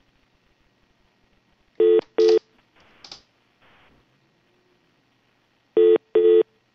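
Telephone ringing tone heard down the line: a short double ring near two seconds in and again about four seconds later, as the call is put through to a line that rings unanswered.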